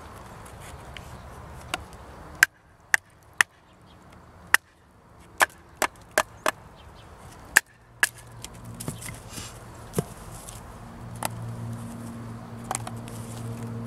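A wooden baton knocks on the spine of a homemade Kephart-style bushcraft knife, driving the blade down through a split of firewood until it splits. There is a run of about nine sharp knocks over five seconds, then a few lighter ones further apart near the end.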